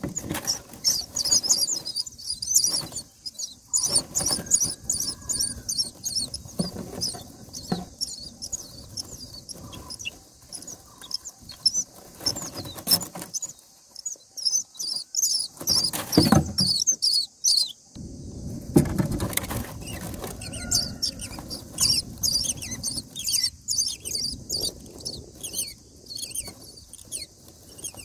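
Common myna nestlings begging with rapid, high-pitched squeaky calls, many short notes a second. Rustling of nest straw runs underneath, with a few louder thumps past the middle as the adult moves at the nest to feed them.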